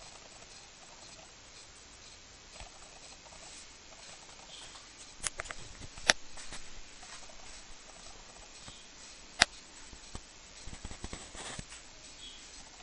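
Faint background hiss broken by a few sharp clicks and taps, two of them loud, about six and nine seconds in, with a rapid cluster of quieter clicks near the end.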